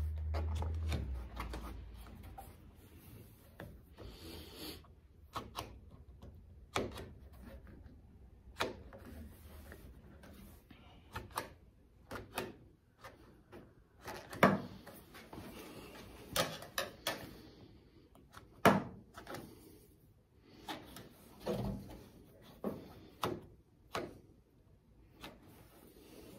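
Rubber weatherstrip being pressed and squeezed by hand into a car's metal roof-rail channel: irregular clicks, knocks and rubbing, with sharper snaps scattered through. A low rumble fades away in the first second or so.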